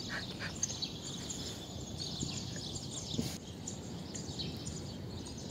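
Outdoor background noise with faint, scattered bird chirps.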